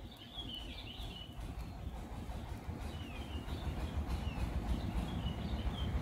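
Canaries giving short, scattered chirps, several falling in pitch, over a low rumble that grows steadily louder.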